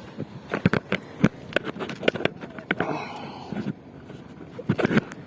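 A quick, irregular series of knocks and taps on a hard surface, loudest in a cluster about a second in and again near the end.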